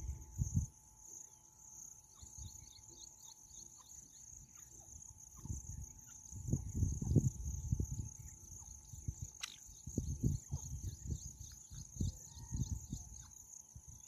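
Steady chorus of crickets or other insects with faint quick repeated chirping, broken by irregular low rumbles and thuds.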